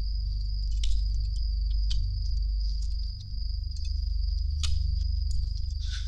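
Crickets chirring in one steady high-pitched trill over a low rumbling background, with a few scattered small clicks and rustles.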